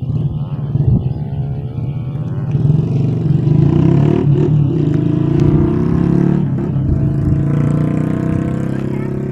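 Motorcycle engine running close by. It cuts in suddenly, climbs in pitch as it accelerates over the first few seconds, then runs at a steady pitch.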